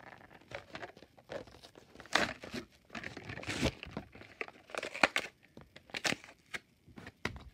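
Hot Wheels blister-card package being torn open by hand: plastic crinkling and cardboard tearing in irregular bursts, loudest about two, three and a half, five and six seconds in.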